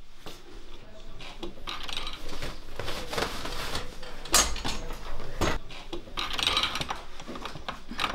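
Chrome tubular frame and padded parts of a portable dental chair being handled and fitted together: a stream of metal clicks, clacks and rubbing, with a couple of sharper knocks around the middle.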